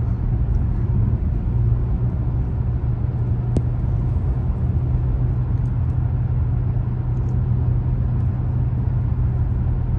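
Steady low rumble of a car's engine and tyres on the road, heard from inside the moving car's cabin. A single faint click comes a little over three and a half seconds in.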